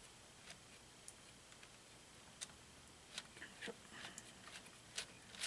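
Faint, scattered clicks and light taps of plastic Lego Technic parts and wires being handled, against near silence.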